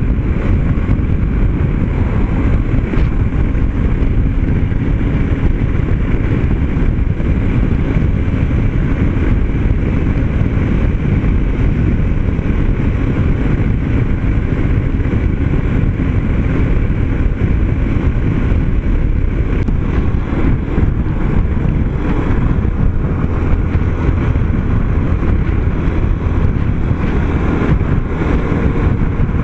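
Yamaha Ténéré 250 motorcycle running steadily at highway cruising speed, its engine mixed with wind rushing over the microphone.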